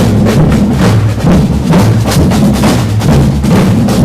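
A group of marching drummers playing loud, with a fast, steady rhythm of beats.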